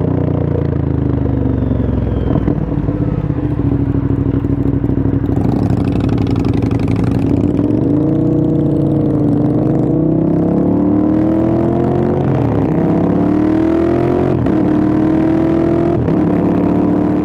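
Moto Guzzi V100's transverse V-twin running loud through an aftermarket Agostini, Mistral and Guareschi Moto exhaust setup. Its pitch climbs and drops several times as it is revved and ridden.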